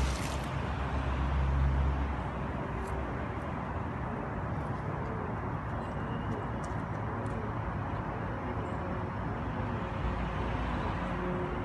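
Steady outdoor background noise with a low rumble, strongest in the first two seconds.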